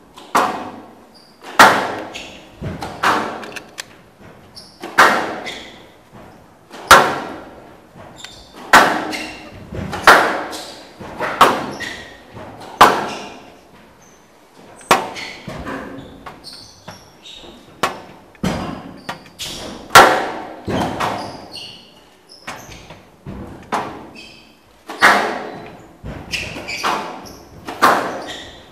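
Squash rally: a squash ball struck by rackets and hitting the court walls, a sharp crack about every one to two seconds, each echoing in a large hall.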